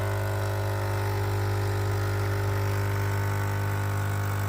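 Krups Dolce Gusto Infinissima capsule coffee machine's vibration pump buzzing steadily while it pushes hot water through a capsule to brew a drink.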